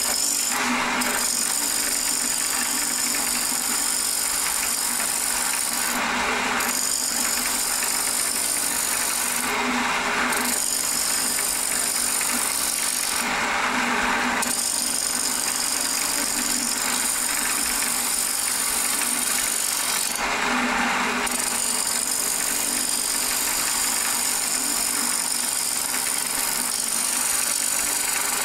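Wood lathe running with a steady motor hum while a parting tool cuts into the spinning wooden bowl blank, throwing shavings. The cutting comes in about five short bouts of louder scraping noise, each under a second, with only the lathe's hum between them.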